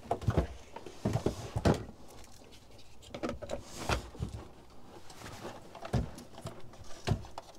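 Scattered knocks, clicks and rustles of handling as a Wi-Fi router and its cables are moved about and hung against a wooden board wall.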